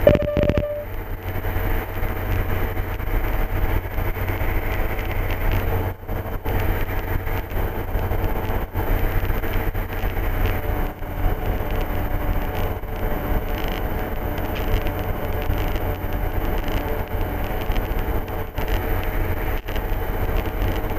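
MD3 Rider ultralight aircraft's engine and propeller running steadily, heard as a constant low drone inside the cockpit. A short tone with a click sounds right at the start.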